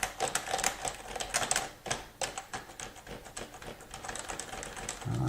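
Fast typing on a computer keyboard, a dense run of key clicks, recorded through a clip-on lavalier microphone as a test of how it picks up background noise.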